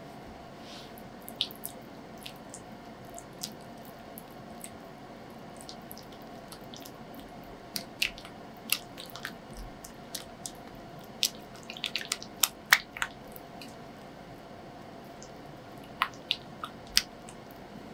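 A spatula working softened cream cheese in a glass mixing bowl: soft squishing with scattered sharp clicks where the spatula taps and scrapes against the glass, busiest around the middle and again near the end, over a steady background hum.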